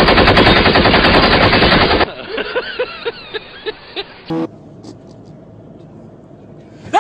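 A rapid string of loud bangs, like machine-gun fire, that sets off a wake-up prank and stops suddenly after about two seconds. It is followed by a run of short voice bursts, yelps or laughs, that end after about four seconds.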